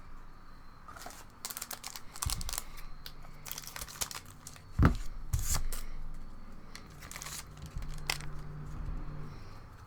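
Foil booster pack wrapper being torn open and crinkled, with trading cards handled in a stack; a single louder thump about five seconds in.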